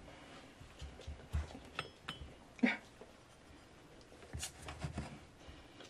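Drinking glass cutting biscuit dough on a wooden cutting board: a few soft, scattered knocks and taps, with a brief squeak about two and a half seconds in.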